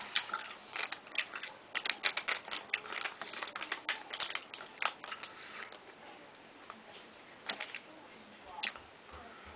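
Stride gum pack and its paper wrapper being handled and opened: a fast run of crinkly clicks for about the first five seconds, then only a few scattered clicks.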